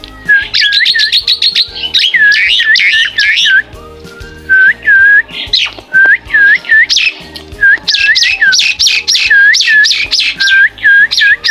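Oriental magpie-robin singing loudly in a cage: quick runs of the same upswept whistled note, repeated over and over in bursts with short pauses between. Background music plays underneath.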